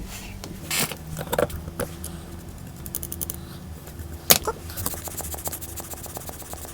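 Light clicks and scrapes of small objects being handled, with two short runs of rapid ticking and one sharper click about midway, over a steady low hum.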